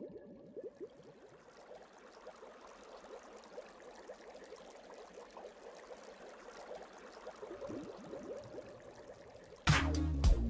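Underwater bubbling sound effect: a steady fizz and gurgle of many small bubbles. Near the end it cuts abruptly to loud music with sharp hits.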